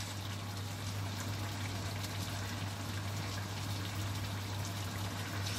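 Tomato-based chicken afritada sauce simmering in a wok on a gas burner: a steady soft bubbling hiss as it boils down to thicken, over a steady low hum.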